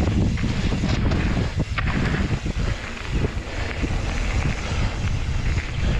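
Wind buffeting the microphone of a camera on a mountain bike riding fast down a dirt forest trail, with the tyres rumbling over the ground. A few sharp knocks and rattles come through over the bumps, around two seconds in and again a second later.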